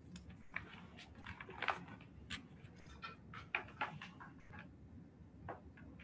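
Faint, irregular small clicks and taps, a few each second, over a low steady hum.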